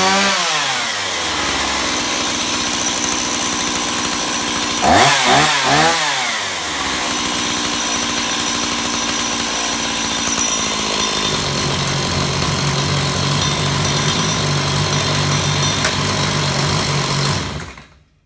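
Stihl MS170 two-stroke chainsaw engine running: revved up and down at the start and again about five seconds in, then idling steadily until it is switched off just before the end. It is still burning off bar-and-chain oil left in the carburettor after the fuel tank was filled with chain oil.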